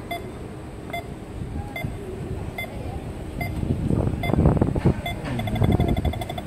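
Pedestrian crossing signal beeping slowly, about once every 0.8 s, then switching about five seconds in to a rapid run of beeps as the walk light turns green. Road traffic passes loudly just before the change.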